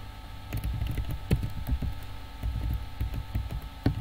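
Typing on a computer keyboard: irregular key clicks and taps over a faint steady hum.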